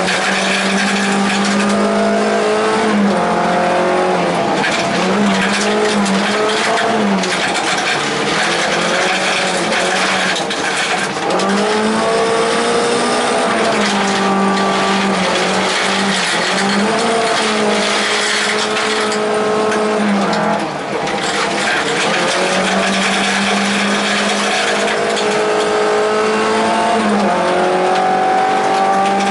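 Volvo 242 rally car's engine at high revs, heard inside the cabin, its note held high and dipping briefly then climbing back several times, over the constant rumble of tyres and stones on gravel.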